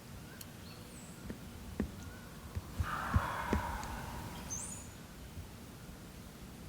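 A quiet stretch with two short, high bird chirps, a few soft knocks, and a brief rushing noise that starts suddenly about three seconds in and fades over a second or two.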